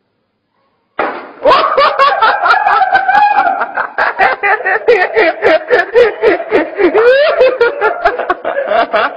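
A person laughing hard in quick, loud pulses, starting abruptly about a second in.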